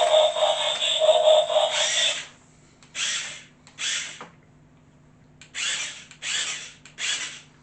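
Jada Toys radio-control Optimus Prime converting itself into truck mode: a loud electronic sound effect from the toy's speaker for about two seconds, then five short whirring bursts from its servo motors as the parts move.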